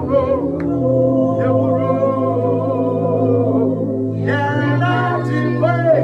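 Worship singing over a sustained keyboard-like accompaniment, with a voice entering strongly about four seconds in.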